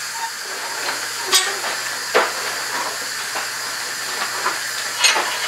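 A few sharp metallic clanks, three in all, as steel bar pieces are picked up and set down at the workbench and vise, over a steady background hiss.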